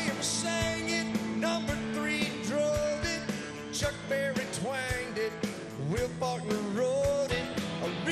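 Live country-rock band playing, with steady drum hits under a lead melody that bends up and down in pitch.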